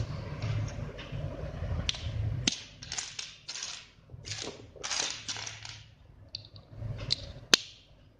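Plastic LEGO bricks clicking and rattling as they are picked from a pile on a tabletop and pressed onto a build, in a series of short irregular clatters with one sharp snap near the end.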